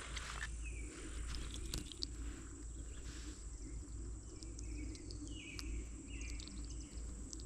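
Creekside ambience: a few short bird chirps over a steady high-pitched insect drone, with a low rumble underneath.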